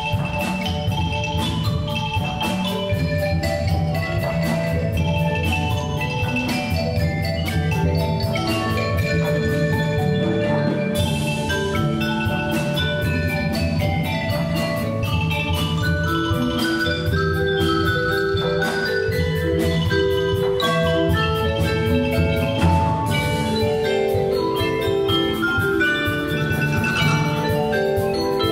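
Percussion ensemble playing an arrangement of Hakka folk tunes: several marimbas and xylophones carry a fast melody of struck notes over drums.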